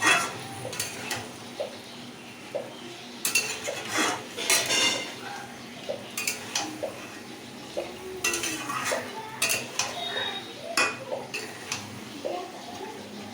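Spatula stirring and scraping chicken and potatoes in a kadai, with irregular clinks against the pan over a faint sizzle as the meat and spices are sautéed in oil.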